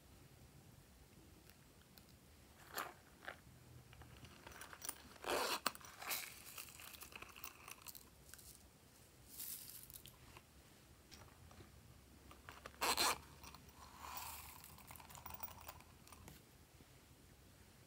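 Hands handling small plastic slime decorations, with intermittent crinkling and rustling noises as gold holographic sequins are scattered onto slime. The loudest bursts come about five seconds and about thirteen seconds in.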